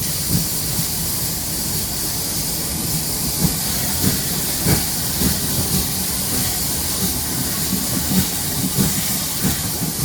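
Steam locomotive of a heritage train under way: a steady hiss of steam over a low, uneven rumble with scattered knocks from the running train.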